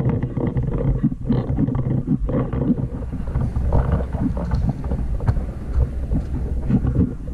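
Loud, uneven low rumble of wind and handling noise on a carried camera's microphone as its wearer moves about, with a few brief sharp clicks.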